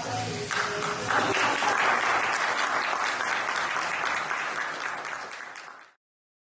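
Applause, swelling about half a second in over the tail of soft background music, then tapering off and cutting off abruptly near the end.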